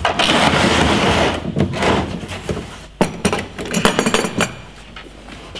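Hard plastic tool case scraping and shifting on a tabletop as it is laid flat, then a quick series of sharp clicks and knocks from about three seconds in as its latches are snapped open.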